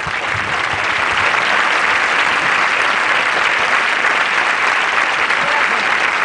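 Studio audience applauding, swelling over the first second and then holding steady.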